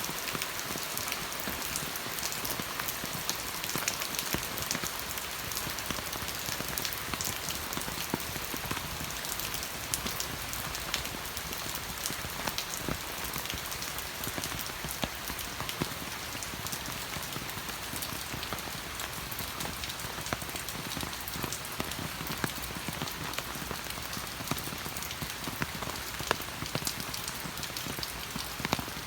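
Steady rain falling, a continuous hiss dotted with many sharp ticks of single drops striking.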